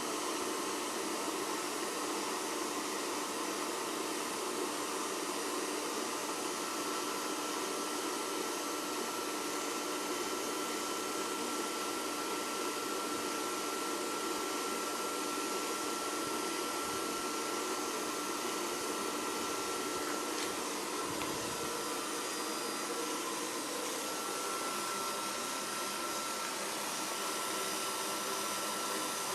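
Charcoal gasifier cookstove's fan running, a steady whirring hiss with a thin, steady whine over it from a few seconds in.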